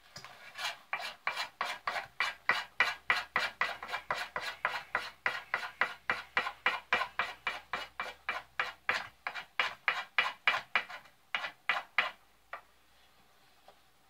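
Knife spine scraping factory varnish off a wooden axe handle in quick, rough strokes, about three to four a second, stripping the finish down to bare wood. The strokes stop near the end.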